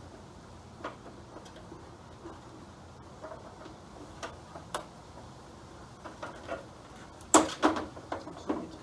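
Scattered light clicks and taps of hard plastic as the headlight assembly and its plastic retaining clips are worked loose by hand. A louder cluster of knocks and rattles comes near the end.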